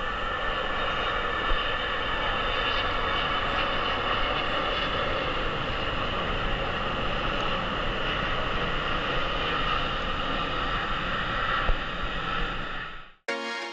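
Twin-engine jet airliner passing low on its landing approach, its engines making a steady loud jet noise with a whine in it, cutting off suddenly near the end as music starts.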